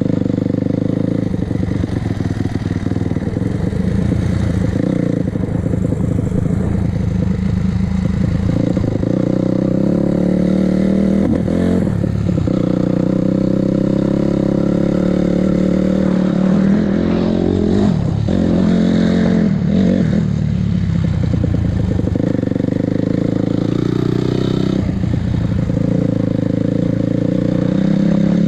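2006 Honda CRF250R single-cylinder four-stroke dirt bike engine running under way on a ride, its pitch rising and falling with throttle and gear changes, with sharp dips about 12 seconds in and again around 18 to 20 seconds.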